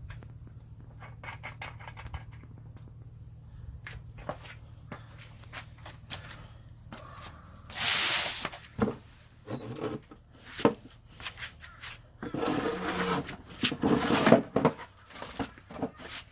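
Hand tools clicking, knocking and scraping on the motorcycle's rear axle and chain adjusters while the chain slack is set, with a few louder rasping bursts about halfway through and twice near the end.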